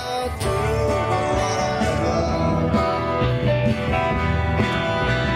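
A small live band playing country-style music on acoustic guitars, an instrumental stretch with no words.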